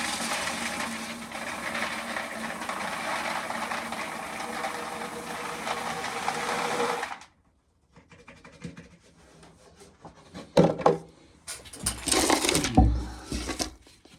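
Corn sheller running steadily, then shutting off abruptly about seven seconds in. Scattered clicks and knocks follow, with a couple of heavy thumps near the end.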